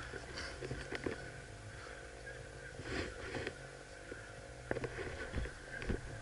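Scattered soft footsteps and rustling of clothing and gear as a player walks through dry grass, over a low steady rumble on the body-worn camera's microphone.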